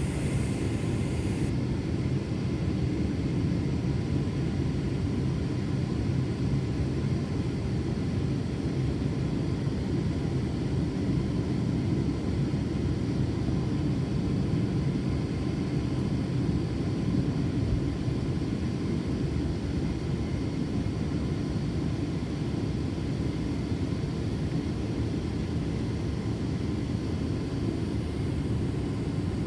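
Steady low cabin rumble inside a Boeing 767-400ER airliner, from its jet engines and airflow, holding an even level throughout.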